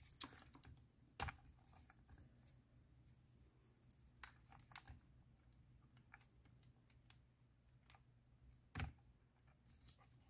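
Faint, scattered plastic clicks and taps of small wiring connectors being worked by hand onto steering-wheel control switches, with near silence between; the loudest click comes near the end.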